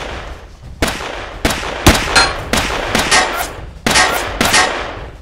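Pistol gunfire: about ten sharp shots, irregularly spaced, in just over four seconds, each followed by a short ringing tail.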